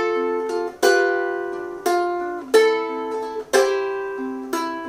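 G-Lab thin-body ukulele (Gazz model) playing the intro progression F–G7–Am–C as a fingerpicked arpeggio. About six chords sound, each one rolled and left ringing, and the G7 and C come in ahead of the beat as syncopations.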